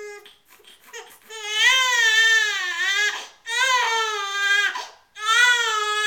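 Infant crying: a short whimper at the start, then three long cries of a couple of seconds each, their pitch wavering up and down.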